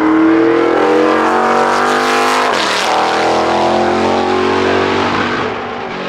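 McLaren M8E Can-Am car's 7.2-litre V8 accelerating hard, its note rising steadily. About two and a half seconds in the pitch drops abruptly as it shifts up a gear, then it climbs again.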